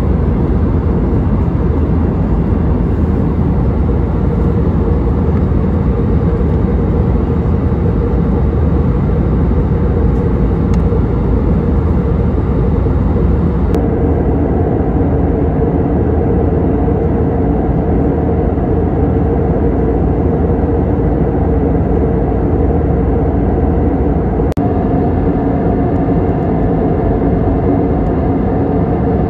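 Steady cabin drone of an Airbus A320neo in flight: the CFM LEAP-1A turbofans and the airflow over the fuselage, heard loud from a seat over the wing, with a steady low hum running through it. About halfway through, the mix of the hum shifts slightly.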